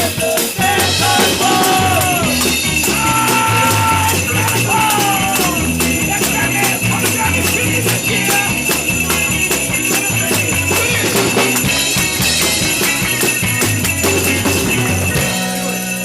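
Live band playing an upbeat Christmas song, with jingle bells shaken in a steady rhythm and gliding melodic lines over it. The percussion stops about a second before the end, leaving held notes ringing.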